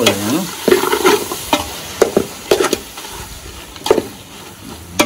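A metal spoon stirring seasoned chicken pieces in a large metal pot over a wood fire, scraping and knocking irregularly against the pot, with the meat sizzling.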